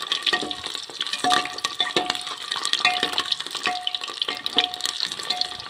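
Hot oil sizzling and crackling as peeled boiled eggs fry in a pressure cooker, with a metal spatula stirring and scraping against the pot about once a second.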